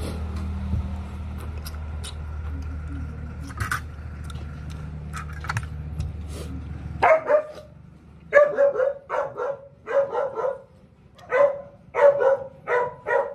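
A dog barking repeatedly: short, sharp barks in quick clusters, starting about seven seconds in. Before the barking, a steady low hum runs and then stops.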